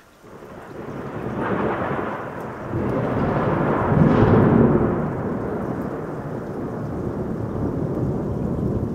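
A long roll of thunder: it breaks in suddenly just after the start, builds over a few seconds to its loudest about four seconds in, then rumbles on steadily before starting to fade at the end.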